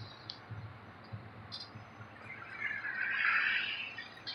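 Fire truck's diesel engine running low as the tractor-drawn ladder truck starts to move off, with a few light ticks and a short hissing rush about three seconds in.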